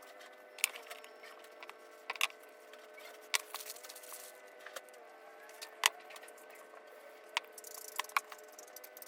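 Scattered clicks and knocks of tools and small parts being handled during electrical outlet installation, with two short rustles, over faint steady tones that change pitch now and then.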